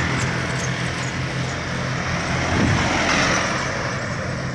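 Diesel trucks driving past close by, a low steady engine note with tyre and road noise that swells as the nearer truck goes by about three seconds in, then eases as it pulls away.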